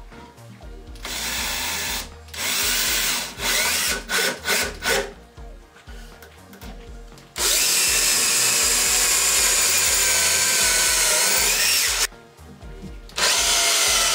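Cordless drill drilling into a wooden stool frame. The motor whines up in a few short runs and stop-start bursts, then runs steadily for about four and a half seconds, with one more short run near the end.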